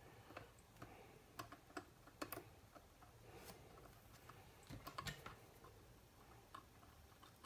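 Faint, irregular small clicks and taps of tools and small parts being handled while wiring a connector.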